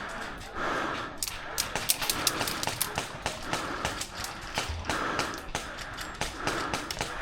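A person breathing hard close to the microphone, one breath roughly every second, over a scatter of sharp clicks that come thickest between about one and three seconds in.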